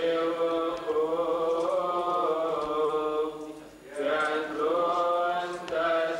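Male chanting of a Coptic Orthodox liturgical hymn: long held notes drawn out in slow melismas, with a short break a little past halfway before the chant resumes.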